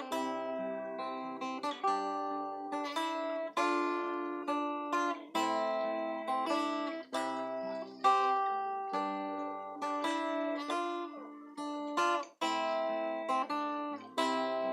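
Acoustic guitar played solo: plucked chords and notes, each struck sharply and left to ring and decay, in an unhurried rhythm of roughly one or two strokes a second.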